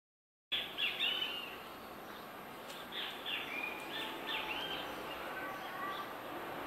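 Birds chirping repeatedly, short arching calls, over a steady background hiss; the sound begins about half a second in.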